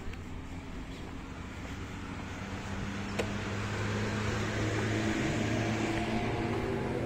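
A car passing on the adjacent road, its engine hum and tyre noise growing louder over a few seconds to a peak near the end, with a single sharp click about three seconds in.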